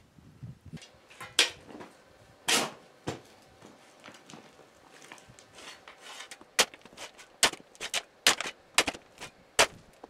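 A steel shovel scraping and scooping gravelly, rocky dirt. The blade strikes the stony ground in sharp scrapes and clinks, a few at first and then about two a second from a little past the middle.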